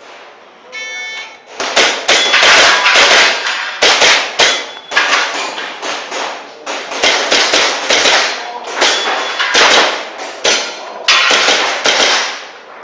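An electronic shot-timer beep about a second in, then a long, fast, irregular string of airsoft pistol shots in quick pairs and bursts as a practical-shooting stage is run.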